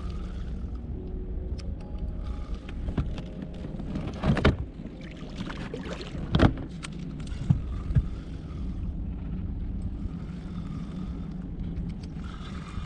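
A hooked perch thrashing at the surface beside a small boat: a few sharp splashes, the loudest about four and a half and six and a half seconds in, over a steady low rumble.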